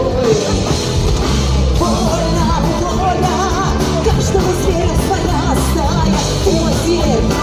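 Loud live folk-rock band performance: a full band plays steadily underneath while a wavering melody line with vibrato weaves above it.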